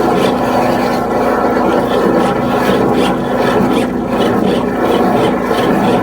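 High-pressure drain-cleaning machine running steadily, with a repeated scraping rub a few times a second over it.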